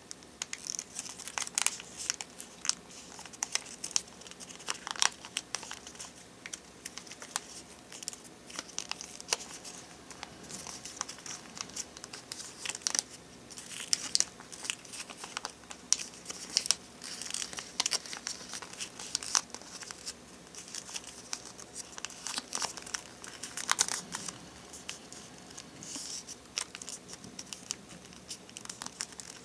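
Origami paper being folded and creased by hand: irregular crackling and rustling of stiff paper, with many short, sharp crinkles.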